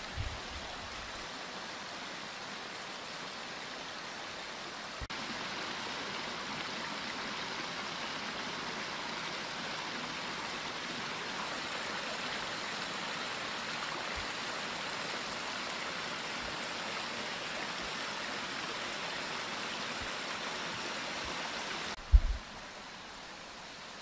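Water from a pondless waterfall spilling over rock ledges and running down a boulder-lined stream, a steady rush. It grows a little louder about five seconds in. Near the end it drops quieter just as a brief, loud thump sounds.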